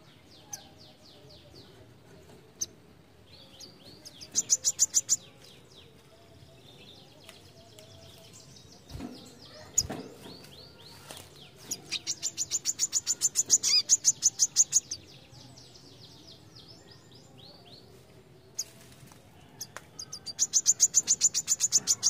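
Male brown-throated sunbird (kolibri kelapa) singing: three bursts of rapid, high chirping trills of about eight notes a second, the longest lasting about three seconds, with scattered single chips between. Two dull knocks come midway.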